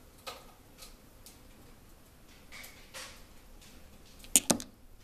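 Small tumbled agates being handled: faint scattered clicks and rubbing, then a quick run of two or three sharp clicks near the end, stone knocking on stone.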